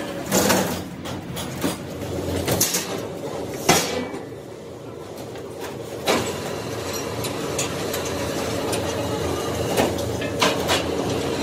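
Factory machinery running steadily, broken by loud, irregular knocks and clanks from parts being handled or struck, about seven in all.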